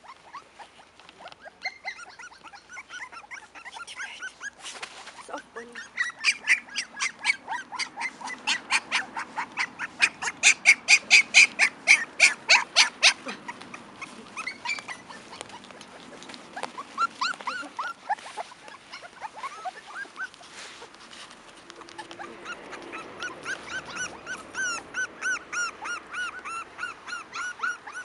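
Cairn Terrier puppies yipping and whining in quick high-pitched series of about three calls a second, loudest in the middle, with drawn-out rising-and-falling whines near the end.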